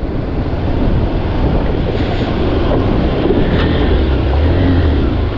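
Motorcycle engine running at low speed while the bike rides through a shallow rocky stream, the tyres splashing through the water.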